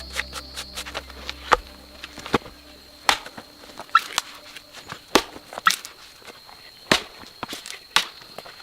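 A string of sharp, irregular clicks and knocks, roughly one every half second to second, over a faint steady high tone.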